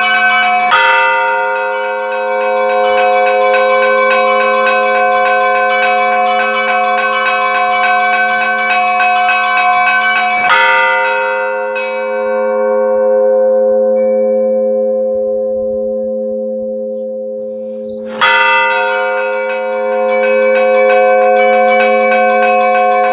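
Large church bell struck three times, roughly eight to ten seconds apart, each stroke ringing on with many overtones that fade slowly while a deep hum lingers between strokes.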